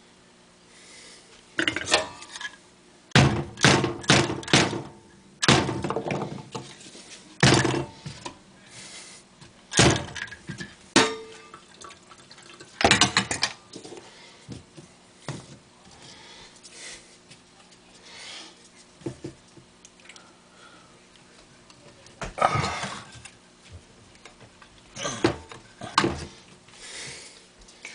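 Irregular knocks and clunks of objects being handled and set down at a stainless steel kitchen sink, among them a metal bottle. The knocks come thick through the first half and are sparser after, with a few more near the end.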